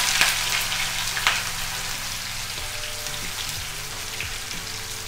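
Chopped onions sizzling and crackling in hot oil in a frying pan, just added. The sizzle is loudest at the start and eases off gradually.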